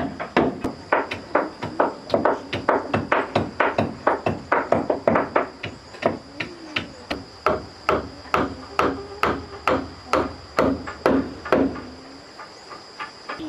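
A fast, even series of sharp blows, about three a second, like hammering or chopping on wood, stopping shortly before the end. A steady high-pitched whine runs underneath.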